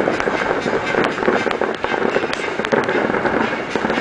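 A fireworks display going off without pause: a dense, continuous run of crackles and bangs from shells and fountains firing in quick succession.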